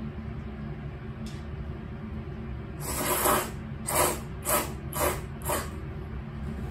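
Udon noodles being slurped with chopsticks: one longer slurp about three seconds in, then four short quick slurps about half a second apart, over a steady low hum.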